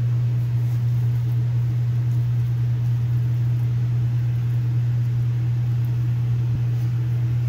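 Steady low machine hum, unchanging in level.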